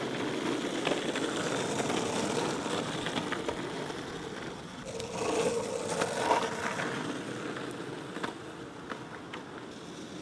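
Longboard wheels rolling over rough asphalt, a steady gritty rumble with small clicks from the pavement, louder for a moment about halfway through as the board comes close.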